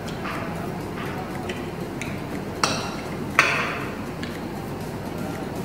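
Metal fork and spoon clinking and scraping against a plate. Two sharp clinks come about three-quarters of a second apart in the middle, with a few light ticks before them.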